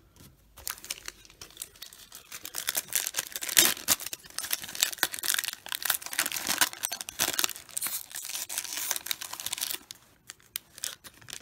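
A 1989 NBA Hoops basketball card wax pack being torn open by hand: the wrapper rips and crinkles in quick, irregular crackles, stopping about ten seconds in.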